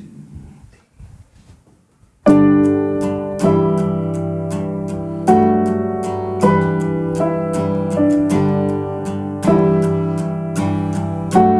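Upright piano playing a slow intro of sustained chords, starting suddenly about two seconds in, with a new chord struck roughly every second.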